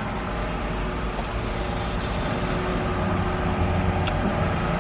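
A van's engine idling with a steady low hum, heard from inside the cab. A faint click about four seconds in.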